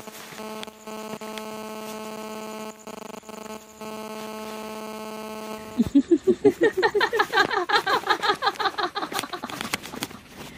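Horror sound effect: a steady, pitched, droning hum for about six seconds, then suddenly a loud, rapid, stuttering vocal-like cry of about five pulses a second that fades near the end.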